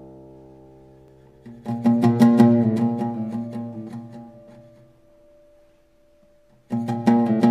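Plucked string instrument played solo. A chord fades away, then about a second and a half in comes a quick run of plucked notes and strums that dies down by about five seconds, and a new flurry of plucks starts near the end.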